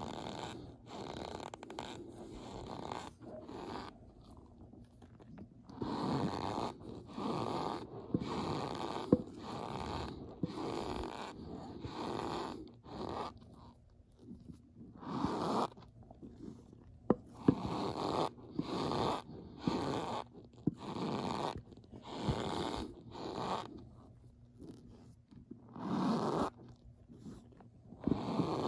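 Argo cornstarch squeaking and crunching as a spatula scoops and presses into a pile of the powder: a run of short strokes about a second apart, with short pauses.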